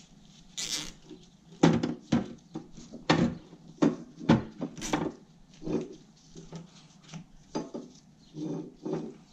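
Irregular metal clinks and knocks as go-kart rear brake parts and screws are handled against the steel chassis, with a short scrape about half a second in.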